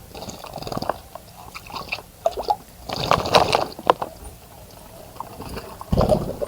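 Birds bathing in a garden bird bath: water splashing and sloshing in short irregular bursts, the loudest about three seconds in and another near the end.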